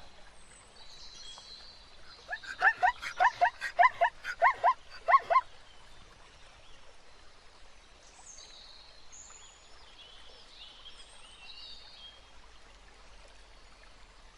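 An animal calling in a rapid run of about ten short, pitched calls, roughly three a second, starting about two seconds in and stopping about five seconds in. Faint, high, short chirps follow.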